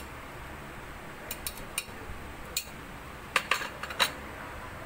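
Metal spoon clinking against ceramic plates while food is served, several short light clinks spread through the middle and latter part, over a steady low hum.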